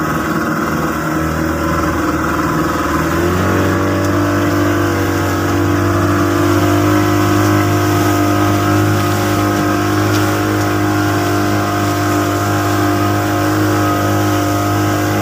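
Motorboat engine picking up speed about three seconds in, then running steadily at speed, with the rush of water past the hull.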